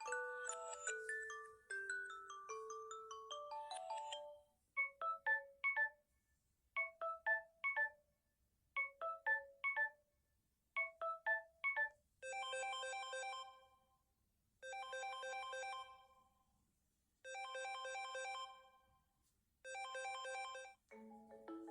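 Alarm tones played one after another. First a short melody, then groups of three quick rising beeps about every two seconds, then a fast pulsing ring in four bursts of under two seconds each, and a new melody starting near the end.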